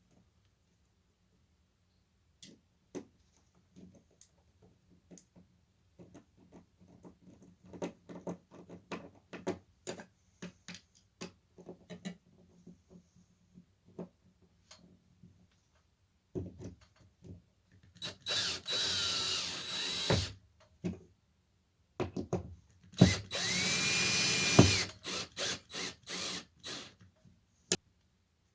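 Power drill boring two holes in sheetrock for wall anchors, each run lasting about two seconds, the second with the motor's pitch rising and then holding steady. Scattered clicks and knocks of handling come before the drilling, and a quick string of clicks after it.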